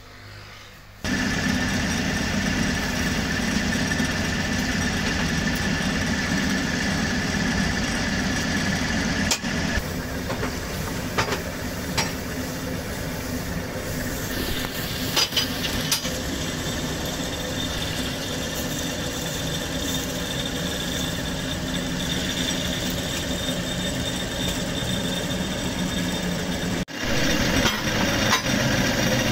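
Wheat straw baling press running steadily, with a constant hum and whine. Sharp knocks and clatter come through now and then as straw is fed in and the ram packs it. The machine noise comes in abruptly about a second in.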